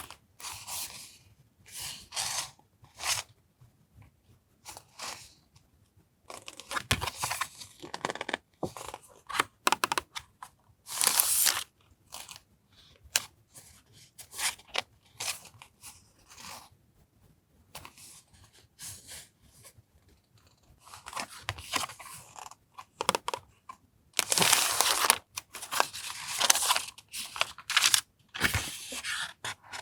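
Paper and plastic stationery packaging handled and unwrapped by hand, in irregular bursts of crinkling, rustling and tearing that grow loudest near the end.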